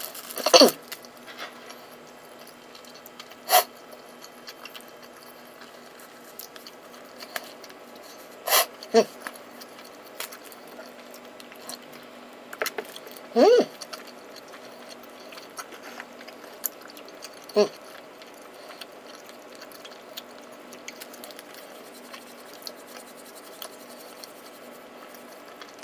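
Quiet room hum after a meal, broken by a few short voiced sounds from the man, such as a brief exhale after a sip of tea, and one sharp click.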